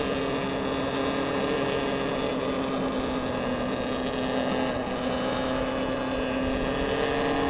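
Talaria XXX electric dirt bike's motor and drivetrain whining steadily while it is ridden at an even speed, over a rushing of wind and tyre noise.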